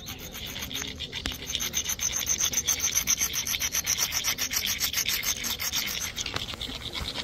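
Stone rubbed rapidly back and forth against another stone, a rough scraping rasp with several strokes a second, grinding an edge to sharpen it into a crude stone knife. The strokes grow louder over the first couple of seconds.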